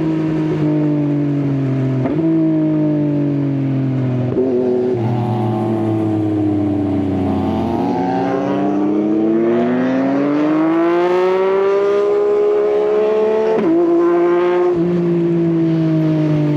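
Yamaha XSR900's three-cylinder engine through an Akrapovič exhaust while riding. The pitch falls for several seconds as the bike slows, broken by brief gear changes, then climbs steadily under acceleration, with another gear change near the end.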